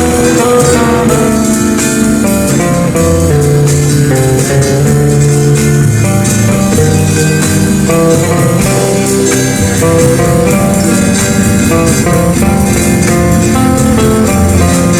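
Instrumental background music led by guitars, with a bass line and a steady beat.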